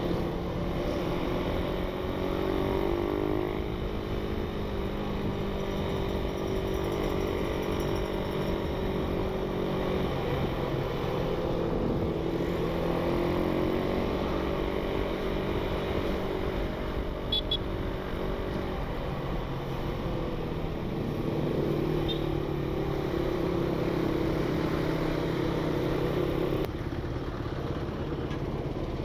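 Motorcycle engine running while riding, heard from the bike itself, its note rising and falling gently with the throttle and settling lower near the end.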